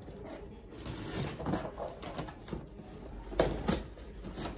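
A small product box and its packaging being opened and handled: irregular rustling and scraping, with two sharp clicks a little past three seconds in.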